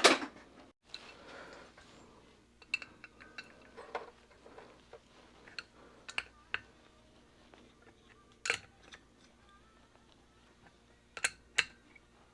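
Metal hand tools clinking and knocking while being handled: scattered small clicks, a louder knock about eight seconds in, and two more close together near the end.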